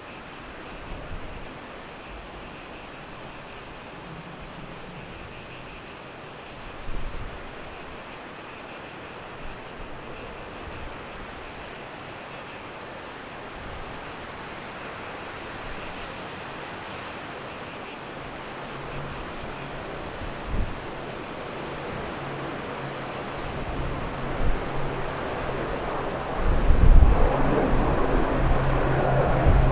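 Insects chirring steadily in a high, even band. About two-thirds of the way in, the hum of an approaching aircraft's engines rises beneath them and grows louder toward the end.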